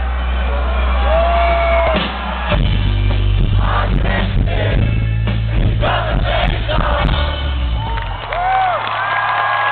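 Live rock band playing loud through a concert PA, with heavy bass, as the crowd around sings along and whoops.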